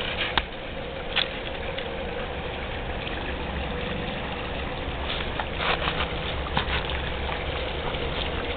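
Shallow creek water running steadily, with short splashes as a Nova Scotia Duck Tolling Retriever wades through it, a cluster of them about five to six seconds in.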